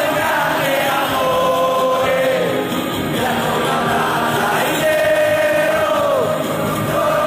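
Music with a group of voices singing together, holding long notes that slide downward at their ends.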